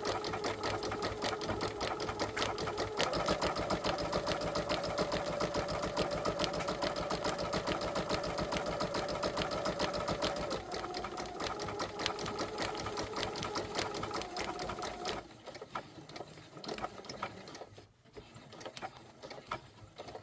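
Domestic sewing machine stitching felt appliqué letters onto fabric: a rapid, even run of needle strokes over the motor's whine. The motor speeds up about three seconds in and slows again around ten seconds. It stops about fifteen seconds in, leaving a few faint clicks.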